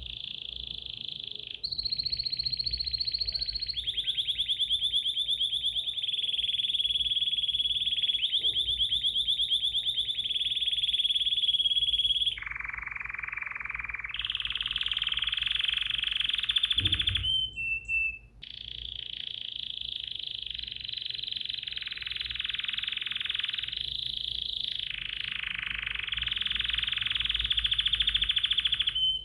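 A songbird singing in long, rapid trills that run unbroken for several seconds at a time, stepping to a new pitch between runs, with brief pauses between some runs.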